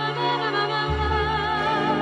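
Background music: a slow melody with vibrato over held low notes, the low note changing about a second in.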